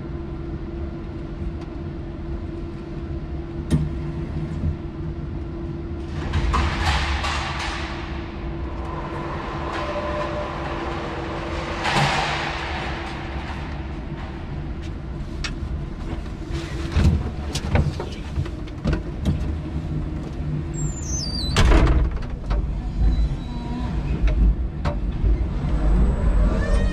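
Electric forklift working: a steady hum broken by two hissing surges, then a run of knocks and clanks from the mast and forks as the truck moves off.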